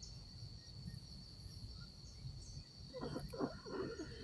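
Crickets trilling steadily at one high pitch, with faint, indistinct voices about three seconds in.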